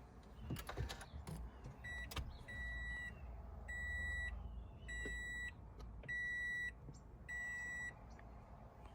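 Electronic beeper sounding a steady high beep six times, about once every 1.2 seconds, each beep about half a second long and the first one short. A few sharp clicks and knocks come before the beeps begin.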